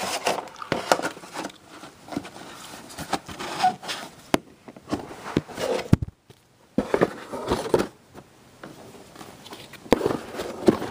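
Handling noise: Blu-ray disc books and cardboard packaging being knocked, slid and scraped as they are packed back into their box, with irregular clicks and rustles throughout.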